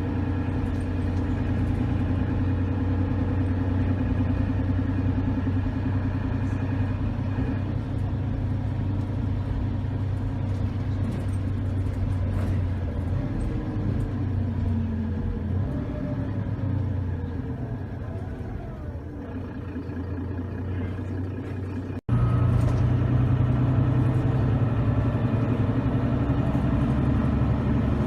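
City bus diesel engine running steadily with a deep drone, easing off and growing quieter about 18 seconds in. About 22 seconds in the sound cuts off abruptly, then comes back louder.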